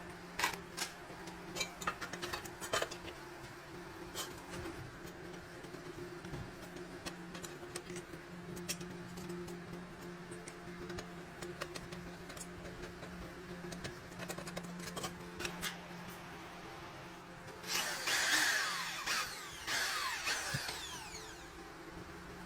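Power tool running in two short bursts near the end, over a steady low hum, with scattered sharp clicks and taps earlier on.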